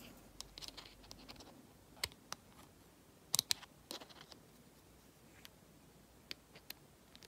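Scattered light clicks and scratches of small metal reel parts and a tool being handled while working at a bearing in a Shimano Exsence DC baitcasting reel, with a couple of sharper clicks a few seconds in.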